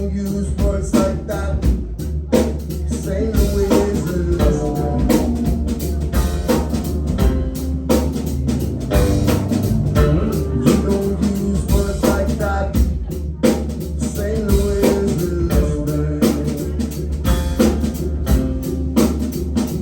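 Live band playing loudly: a drum kit keeps a steady beat over a deep bass line, with pitched instrument parts above.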